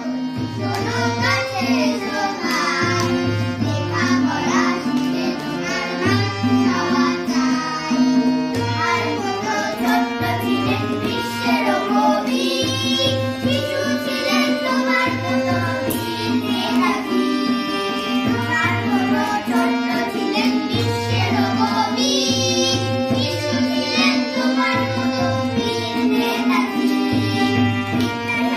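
A child singing an ornamented Indian classical-style song to a harmonium, over a steady held drone note and a regular low beat.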